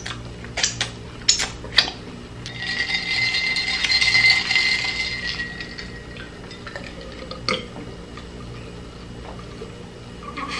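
Close-up eating sounds: chewing banana cue gives a few sharp clicks in the first two seconds, then a glass of iced drink is drunk from, with a hissing sip of about three seconds and quieter gulps and swallows after.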